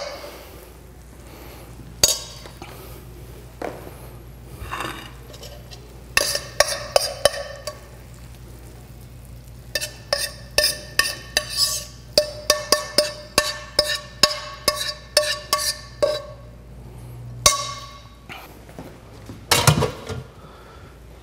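Metal spoon scraping and tapping against a stainless steel sauté pan while fruit compote is spooned out onto a plate: quick runs of clinks, the pan ringing briefly after the strikes. A single louder knock near the end.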